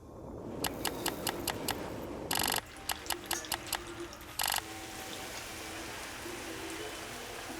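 Typewriter keys clacking in quick runs, broken twice by a short ratcheting zip, then a steady hiss for the last few seconds.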